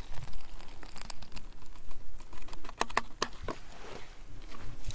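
Scattered light clicks and crinkles from handling a small plastic water bottle and a foil freeze-dried meal pouch as cold water is poured in.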